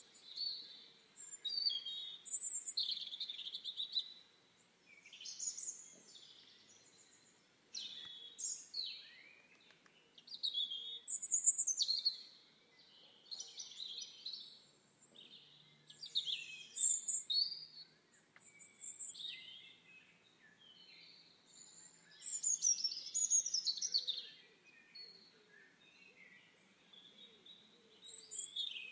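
Several songbirds chirping and singing, with short high phrases and trills overlapping one another and coming in bouts every second or two, over a faint steady hiss.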